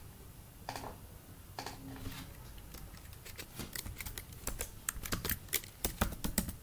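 Typing on a computer keyboard: a few scattered keystrokes at first, then a quick run of keys from about halfway through.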